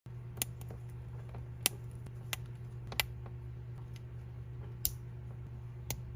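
About six sharp, irregularly spaced clicks of small plastic building-brick pieces being handled, over a steady low hum.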